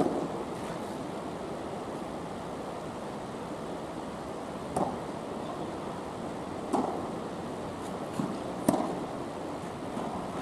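Tennis ball struck by rackets and bouncing during a rally on an indoor court: a sharp hit at the start, then several more hits and bounces a second or two apart, with a steady hiss underneath.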